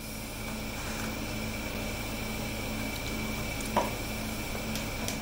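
Steady background hum with a constant faint high whine, and one short light knock about three-quarters of the way through.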